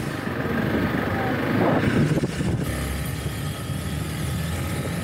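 Motorcycle engine running at low road speed, with street traffic around it; a little louder about two seconds in.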